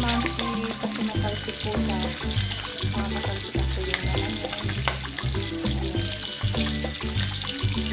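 Bacon strips sizzling and crackling in hot oil in a wok, over background music with a steady, repeating bass beat.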